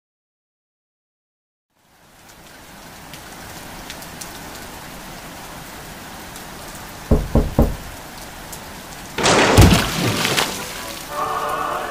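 Rain sound effect fading in about two seconds in and falling steadily. Three quick low thumps near the middle, then a loud clap of thunder about nine seconds in.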